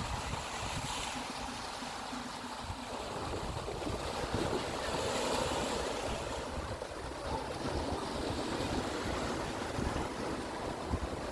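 Sea water washing and splashing in a steady, surging wash, with wind buffeting the microphone.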